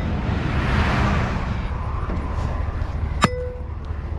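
A vehicle passing on the road swells and fades, then about three seconds in a sledgehammer strikes a steel U-channel sign post once with a sharp, briefly ringing clang.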